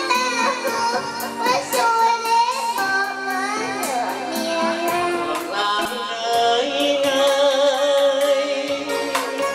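A young girl singing into a microphone over recorded backing music. About six seconds in it cuts to a man singing into a microphone over a different backing track.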